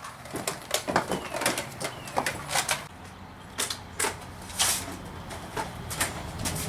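A run of sharp, irregular clicks and knocks, several a second for the first three seconds, then fewer and further apart.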